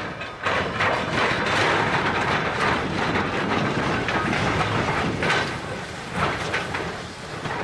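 Tank steam locomotive hauling a train of coaches past at close range: a steady mixed noise of the engine working and steam escaping, with wheels clattering over the rails and pointwork.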